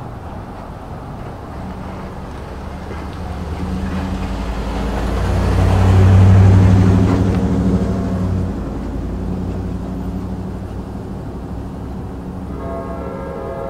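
A box truck drives past close by: its engine hum and tyre noise build to a peak about six seconds in, then fade. Near the end, a train horn starts to sound, several steady notes together.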